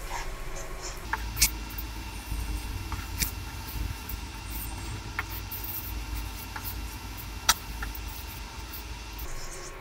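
Wooden spatula stirring and scraping thick masala paste in a steel pan: soft scraping with scattered sharp clicks and pops, over a steady low hum.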